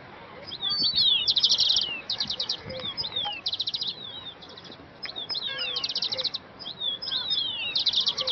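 Songbirds singing: bursts of rapid, high trilled notes roughly every two seconds, interspersed with short downward-slurred whistles.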